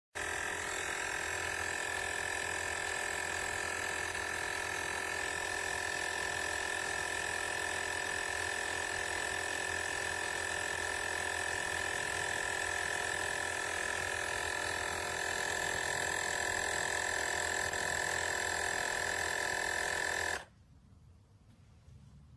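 Battery-powered portable tire inflator's compressor running steadily with a high whine over a low pumping hum, then stopping abruptly about twenty seconds in.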